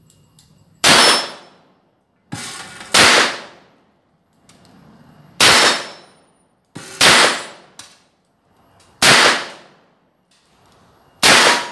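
Six shots from a Taurus M83S .38 Special revolver, fired about two seconds apart. Each is a sharp crack with a brief echo trailing it.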